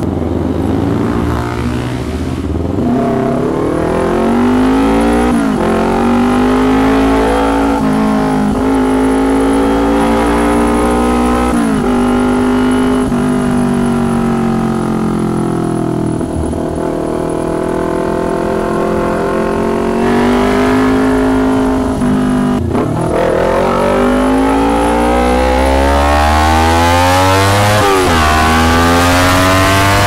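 2019 Kawasaki Ninja 250's parallel-twin engine through a loud, tinny-sounding custom exhaust, pulling through the gears: the pitch climbs with the revs and drops at each upshift. It holds steadier for a while in the middle and climbs hard again near the end.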